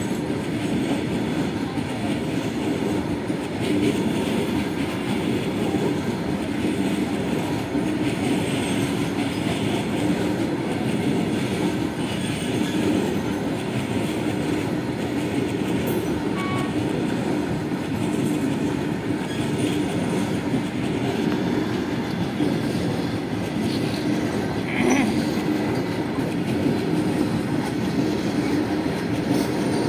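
Long freight train of covered and open wagons rolling past, its wheels rumbling and clattering steadily on the track.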